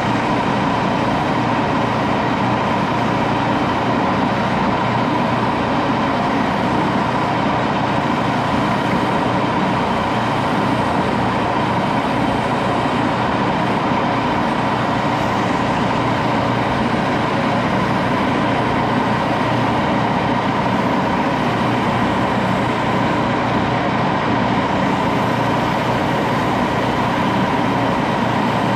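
Metal lathe running steadily, a constant mechanical hum with a steady whine, as a handle is turned and shaped by hand.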